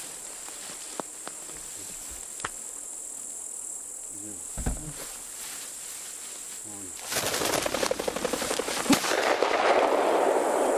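Crickets and insects buzzing steadily, then about seven seconds in a cock pheasant flushes from the tall grass with a sudden rapid clatter of wingbeats, and a single shotgun shot follows about two seconds later.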